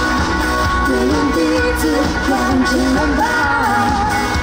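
Live pop-rock band playing a song: a lead vocal melody over bass and a steady drum beat.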